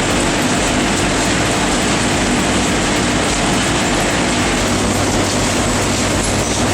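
Heavy industrial machinery running: a loud, steady mechanical din with a low hum underneath.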